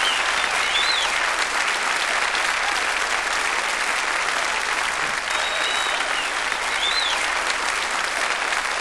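Concert audience applauding steadily after a song, with a few shrill whistles rising and falling above the clapping, about a second in and again later.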